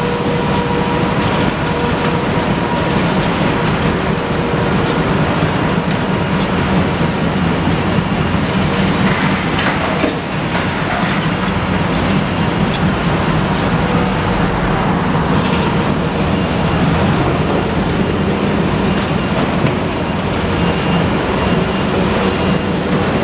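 Heavy diesel machinery, excavators clearing demolition rubble, running steadily with a deep continuous rumble and some clatter.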